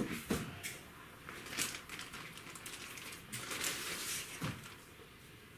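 Thin clear plastic bag rustling and crinkling as a laptop is pulled out of it, with a few light knocks, the sharpest right at the start.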